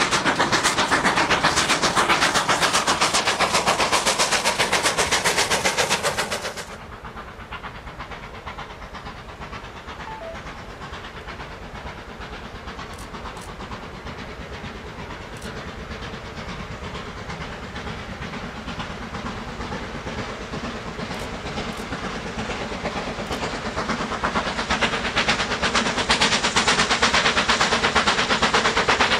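A steam-hauled train running close past, loud, until it cuts off suddenly about seven seconds in. Then a steam locomotive hauling coaches chuffs in from a distance, growing steadily louder as it approaches.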